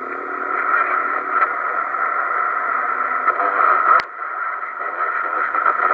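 The 2970 transceiver's speaker giving out band-limited static and garbled, mistuned sideband signals while tuned around channel 38, with a sharp click about four seconds in.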